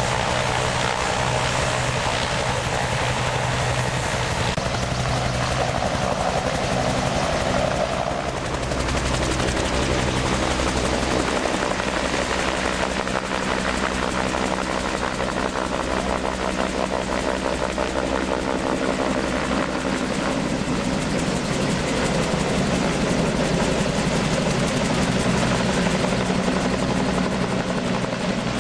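Helicopter lifting off and climbing away, its engine running steadily under a rapid, regular beat from the rotor blades.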